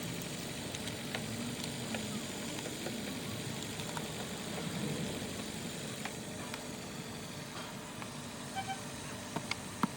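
2015 Hyundai Elantra's four-cylinder engine running at idle, with a few sharp clicks near the end.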